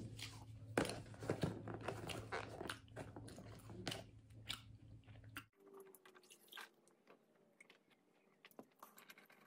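Close-mic chewing and mouth sounds, with scattered clicks from a plastic food container being handled. About halfway through the sound suddenly drops much quieter, leaving only faint clicks.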